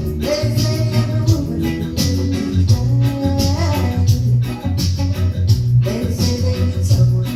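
Reggae music, with a steady bass line under a regular beat and guitar.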